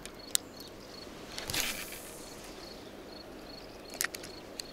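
Handling sounds of a spinning rod and reel: a sharp click, a short whoosh about a second and a half in, and a couple of clicks near the end. Underneath, quiet outdoor ambience with a faint chirp repeating about three times a second.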